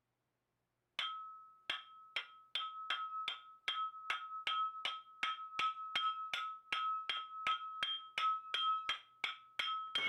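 Rawhide mallet tapping repeatedly on the air compressor's electric motor casing, about three strikes a second, each leaving a short metallic ring. It is knocking the motor apart, and the casing comes free just afterward.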